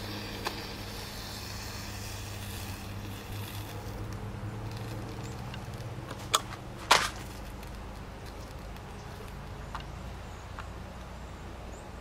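A potassium nitrate–sugar–magnesium rocket motor burning out through the side of its casing, its failed case venting flame. A soft hiss fades over the first few seconds, then two sharp pops come about half a second apart near the middle, over a steady low hum.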